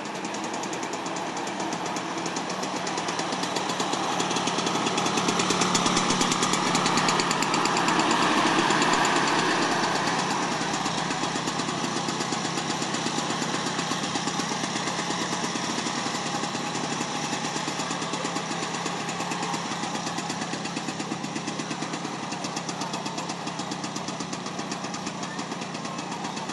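Two-stroke scooter engine running close by with a rapid, even firing beat. It grows louder for a few seconds in the middle, then settles back to a steady idle.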